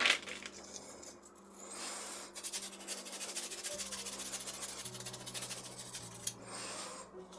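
A sharp metallic click, then fast, continuous rubbing strokes on a FELCO 7 secateur blade as it is scrubbed clean of grime.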